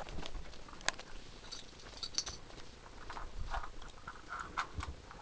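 A dog moving about close by: scattered soft clicks and patters.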